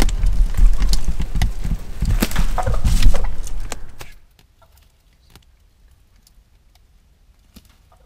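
Turkey clucking close by over a heavy low rumble. The sound cuts off abruptly about four seconds in, leaving only a few faint ticks.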